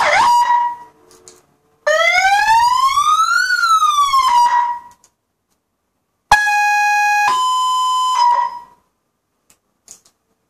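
Cool Zingers CZ-100 100-watt electronic siren sounding its tones in turn. A fast yelp cuts off just after the start. Then comes a single wail that rises for about a second and a half and falls again, and after a pause a two-tone call, one low note stepping up to a higher one, each tone stopping abruptly.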